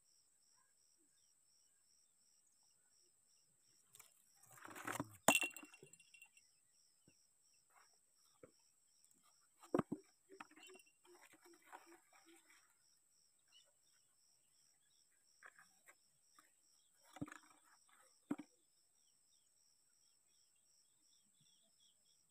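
Steady chirping of insects, a pulsing chirp over a constant high tone. Over it come a few knocks, clicks and rustles of fishing gear being handled. The loudest is a rustle with a sharp click about five seconds in, and two clicks come near the end.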